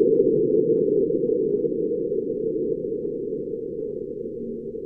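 Sped-up sonification of the likely marsquake recorded by NASA InSight's SEIS seismometer on Mars: a low rumble, strongest at the start and slowly fading away.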